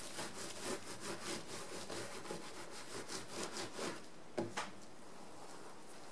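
Hands rubbing a soaped net curtain over wet wool layers in quick back-and-forth strokes, the gentle early rubbing that starts the fibres felting. The rubbing stops after about four seconds, followed by two short knocks.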